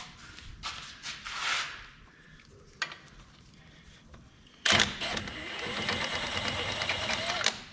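Cordless power tool running for about three seconds, starting near the end, spinning out an 18 mm front ball-joint bolt that has already been broken loose by hand. It runs with a steady high whine, and a few light knocks of handling come before it.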